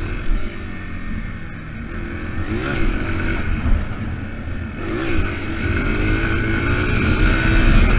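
Single-cylinder four-stroke 230 dirt bike engine running under way, muffled through a GoPro waterproof case, with wind rumble. The engine note dips and climbs again twice as the throttle changes.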